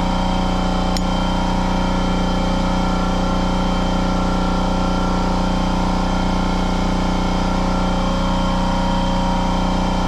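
A steady machine hum at one constant pitch, unchanging throughout, with a single faint click about a second in.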